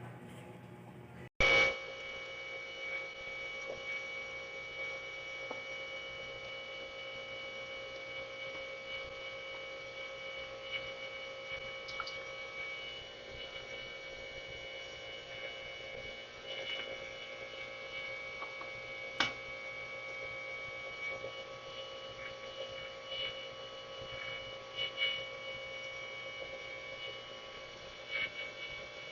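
Steady machine hum made of several constant tones, with a few faint clicks and taps scattered through it. A sharp click comes about a second and a half in.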